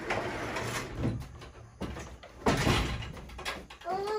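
Scraping and rattling, then a heavy knock about two and a half seconds in.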